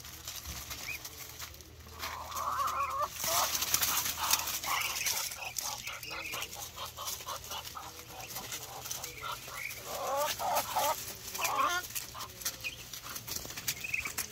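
A flock of Muscovy ducks, ducklings and a hen feeding on watermelon rinds in dry leaves: rapid pecking and rustling clicks, with short clucking calls about two seconds in and again around ten to twelve seconds.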